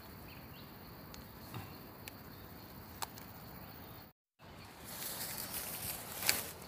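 Hands rustling through grass and leaf litter while plucking termite mushrooms from the ground, with a few light clicks and snaps. After a short break about four seconds in, the rustling is louder, with one sharper snap near the end.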